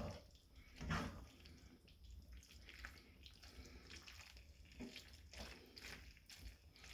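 Faint wet stirring of pasta in a thick creamy cheese sauce in a pan, with a few soft knocks of the spoon.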